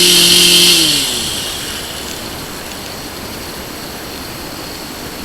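Small two-stroke engine of a power drill boring holes in a log runs at full speed, then drops in pitch and winds down about a second in as the drill is let off. A steady, quieter engine rumble carries on after it.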